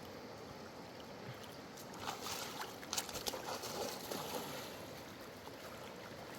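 Water splashing and lapping over a steady wash, with a cluster of splashes and knocks in the middle.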